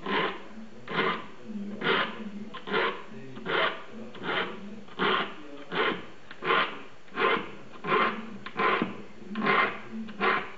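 A small file stroking across the steel teeth of a Japanese saw clamped in a saw vise, sharpening it with short rasping strokes in a steady rhythm of about three every two seconds.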